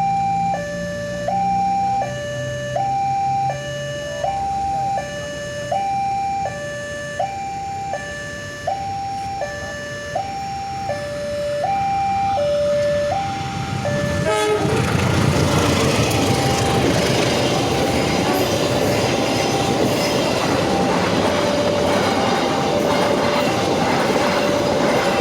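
A railway level crossing's electronic warning alarm sounds a high-low two-tone signal, about one cycle every second and a half. About fourteen seconds in, a train arrives and passes close by. The rumble and clatter of its wheels on the rails take over as the loudest sound, while the alarm keeps going faintly underneath.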